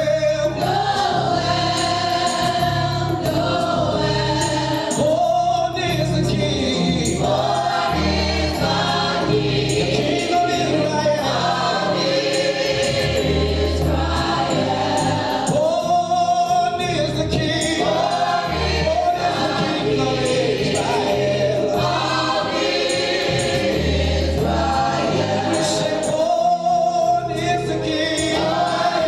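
Choir singing gospel music over a steady low accompaniment.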